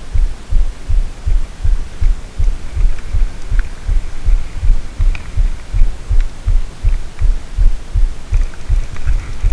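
Low rhythmic thumping rumble on the action camera's microphone, about four thumps a second, with a few faint clicks.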